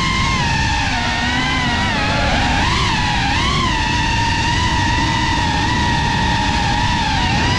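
GEPRC Cinelog35 FPV quadcopter's brushless motors and propellers whining in flight, a steady tone that wavers up and down with the throttle, over a low rush of air noise.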